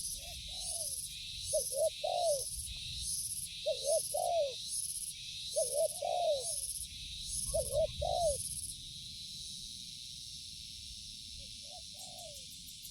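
Spotted doves (tekukur) cooing: short phrases of rounded, falling coos come every two seconds or so, with a longer pause before one last phrase near the end. Behind them a high insect buzz pulses about twice a second and stops about two-thirds of the way through.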